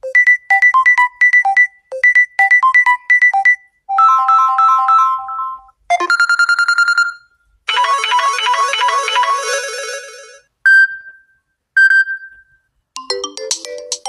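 Samsung Galaxy A14 5G ringtones playing one after another, each a short electronic tune of a few seconds separated by brief pauses. A quick beeping figure plays twice, then several different melodies, then two single chimes and another tune near the end.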